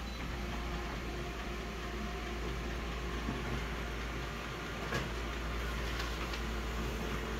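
Konica Minolta office copier running as it prints a copy: a steady mechanical hum, with a single sharp click about five seconds in.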